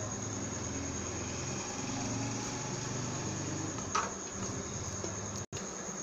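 Steady low machine hum with a thin, steady high whine above it; a single click sounds about four seconds in, and the sound cuts out for an instant about five and a half seconds in.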